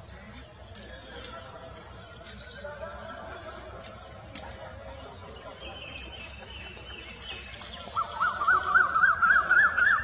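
Birds calling: a high, rapid run of repeated notes about a second in, then near the end a louder, lower run of quick rising-and-falling notes.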